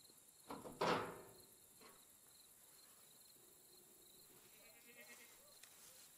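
A goat bleats once, a short loud call a little under a second in.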